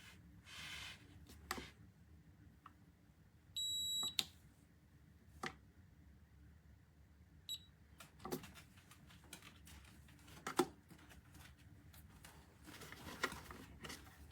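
Electronic beep from a cordless cat water fountain's control panel: a steady high tone for about half a second, then a much shorter beep a few seconds later. Between the beeps come scattered small clicks and knocks of handling, one louder knock in the second half.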